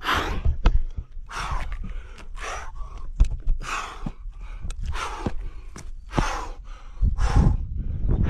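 A man breathing hard from the exertion of scrambling up rock: loud, gasping breaths about once a second, with a few small knocks and a low rumble near the end.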